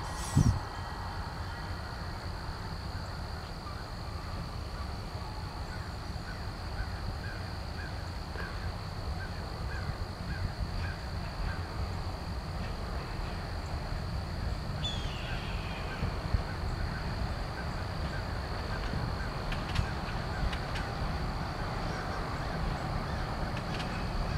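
Diesel locomotive approaching slowly, a low steady rumble that grows a little louder toward the end. Over it a bird calls over and over in a quick, even series for about ten seconds in the first half.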